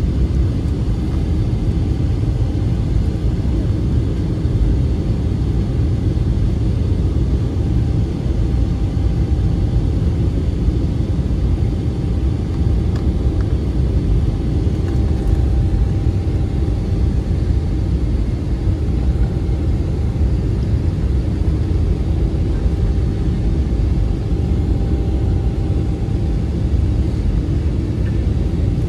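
Cabin noise inside an Airbus A320-family airliner descending to land: the engines and rushing air make a steady, deep, even rumble, with a faint steady whine over it.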